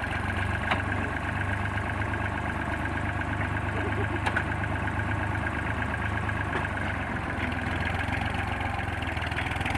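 Small tractor's diesel engine running steadily at low revs as it pulls a weighted cultivator frame through crop stubble.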